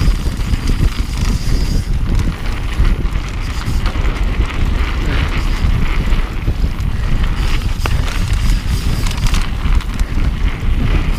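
Wind buffeting the microphone of a camera on a mountain bike riding fast over a dirt singletrack, over the steady rumble of knobby tyres on the dirt and small rattles and ticks from the bike on the rough ground.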